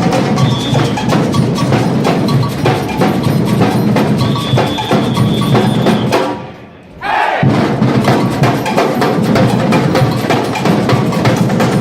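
Samba bloco drum section playing a dense, driving groove: deep bass drums, snares and high clacking wood-block-like percussion. A high steady whistle sounds briefly near the start and again for about two seconds around the middle. The drumming then breaks off for about a second and comes straight back in.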